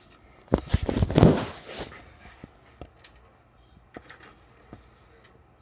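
DVD player clicking and rattling as it is worked while being tested after reassembly: a dense burst of clicks and a short rattle about half a second in, lasting about a second and a half, followed by a few scattered ticks.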